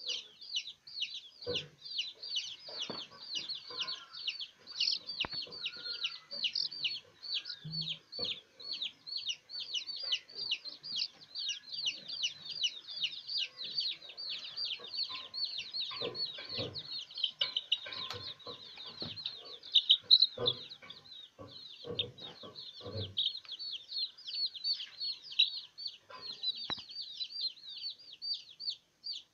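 Baby chicks peeping: a continuous stream of high, falling peeps, several a second, the distress peeping typical of chicks held in the hand. Soft knocks and rustles from handling come in about halfway through.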